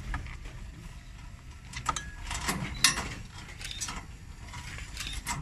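Remote-controlled rear loading ramp of a wheelchair-access vehicle being raised by its mechanism: scattered mechanical clicks and clanks, the sharpest about three seconds in.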